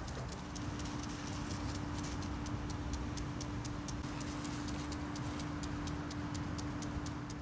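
Garden impact sprinkler ticking rapidly and regularly as its arm knocks round, over a steady low hum and the faint hiss of the spray.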